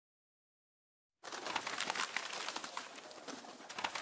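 Pencil-sharpening sound effect: after about a second of silence, a dense scratchy grinding of a pencil in a sharpener starts and carries on.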